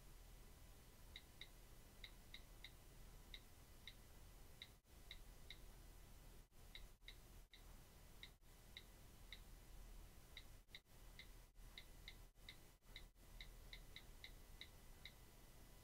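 Faint iPhone on-screen keyboard clicks: a run of short, crisp ticks, one per key tap, two or three a second with brief pauses between words, while a sentence is typed.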